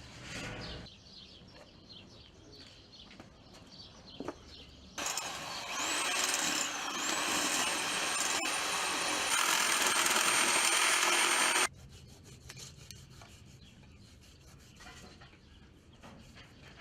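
An electric machine switches on with a high whine climbing to a steady pitch over a loud hiss, runs for about seven seconds and cuts off suddenly; quiet handling noises before and after.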